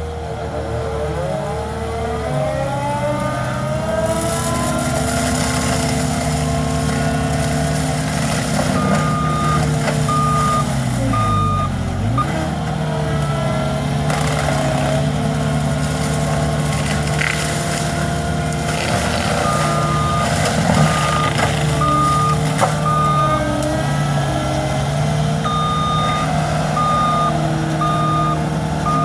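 CAT skid steer loader's engine running hard, its pitch rising in the first few seconds and dipping briefly about twelve seconds in. The machine's reversing alarm beeps steadily in three spells as it backs up.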